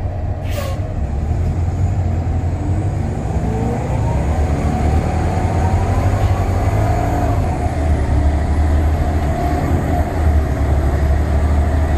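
City bus engine and drivetrain rumbling, heard from inside the cabin, while the bus is under way. A whine rises in pitch from about two seconds in as the bus picks up speed, then holds steady.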